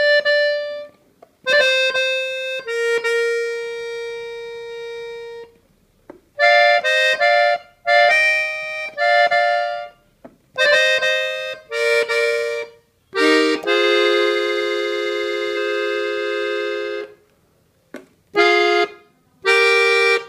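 A Gabbanelli button accordion's treble buttons playing a norteño melody in short phrases separated by brief pauses. About two-thirds of the way through it holds one long chord, then plays short repeated chords.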